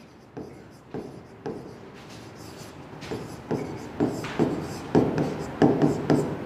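A pen writing on a board: a series of short scratching and tapping strokes, sparse at first and louder and more frequent from about three seconds in.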